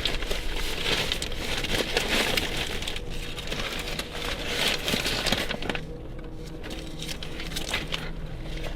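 Crinkling and rustling of a wrapped package or bag being handled and opened, in irregular bursts for about six seconds, then quieter with a faint steady hum.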